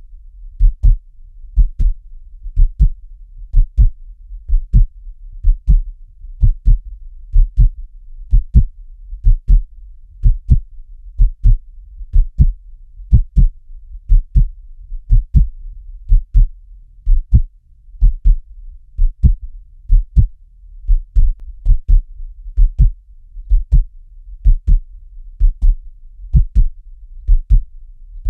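Heartbeat, steady and slow, about one beat a second, each beat a low double thump (lub-dub), over a faint low hum.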